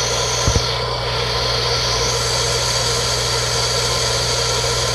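Goulds water pump motor running steadily with a constant hum, pumping against shut-off water so the pressure builds toward its deadhead point. A single brief knock sounds about half a second in.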